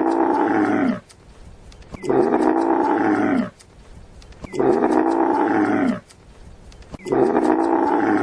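Camel grunting: four long calls about two and a half seconds apart, each dropping in pitch at its end.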